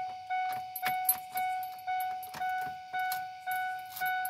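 A 1997 Ford F-150's dashboard warning chime dinging over and over, one even tone about twice a second.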